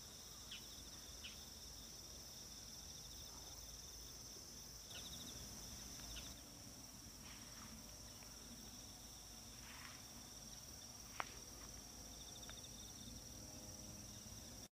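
Faint, steady chorus of crickets and other insects, a continuous high-pitched trill with a pulsing lower strand. A few soft clicks, and one sharp click about three quarters of the way through.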